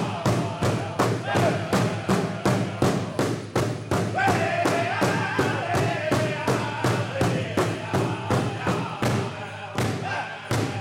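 Powwow big drum struck in unison by several drummers in a steady beat of about three strokes a second, with a group of men singing a powwow song over it. The singing grows stronger about four seconds in.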